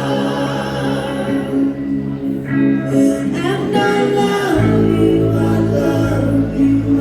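Live band music: a sung line over guitar and sustained chords, with a deep bass note coming in about four and a half seconds in.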